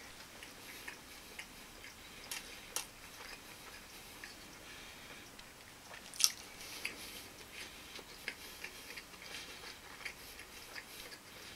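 A person chewing fried shumai, with soft mouth noises and scattered light clicks of chopsticks against a ceramic bowl; the sharpest click comes about six seconds in.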